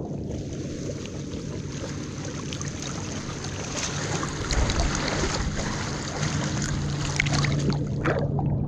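Choppy lake water sloshing and lapping against a camera held right at the surface, a steady watery wash with a low rumble.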